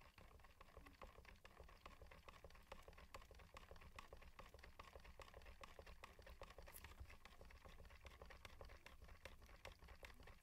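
Faint, fast and even clicking and scraping of a stir stick against the sides of a plastic cup as two-part polyurethane resin is mixed.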